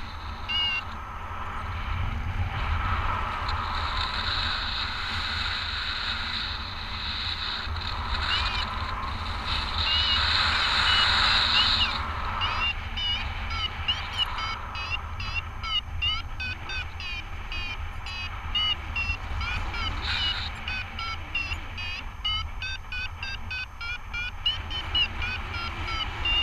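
Wind buffeting a paraglider's camera, with a rushing hiss that swells near the middle. From about halfway a paragliding variometer beeps rapidly in short chirps, several a second: the climb tone that signals the glider is rising in lift.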